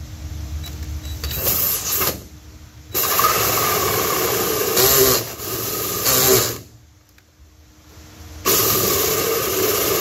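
Cordless drill spinning a hole saw into the trailer's sheet-metal wall, a motor whine with the grind of the saw teeth. It runs in three spells: a short one about a second in, a longer one from about three seconds, and another from about eight and a half seconds, with pauses between.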